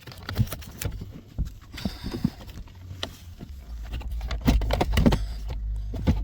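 Hands working a plastic shifter trim panel and its press-and-pull wiring connector: a string of irregular plastic clicks and knocks over a low rumble.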